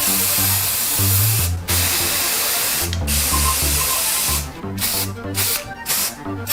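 Aerosol spray can spraying: three long sprays of about a second and a half each, then short quick bursts about twice a second.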